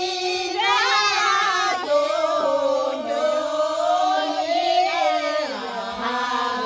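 A group of people singing a song together, several voices at once, with long held notes that slide up and down in pitch.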